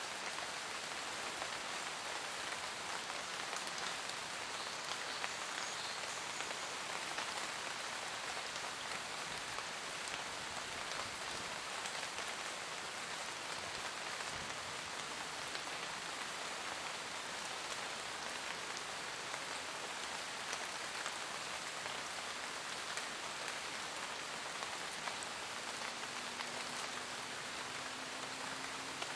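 Steady rain falling in a forest, a dense even patter of many drops with scattered individual drop ticks.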